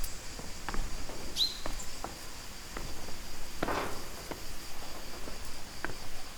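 Footsteps going carefully down forest steps: scattered scuffs and steps on stone and earth, with a longer scrape a little after halfway. A steady high-pitched insect drone, like crickets, runs underneath, and a short chirp comes about a second and a half in.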